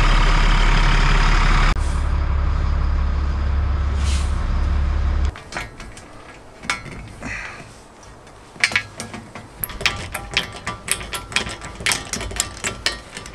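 School bus engine running, loud and steady with a strong deep low sound; the sound changes about two seconds in and cuts off abruptly about five seconds in. After that come scattered light metal clicks and taps of hand tools working on steel strut channel.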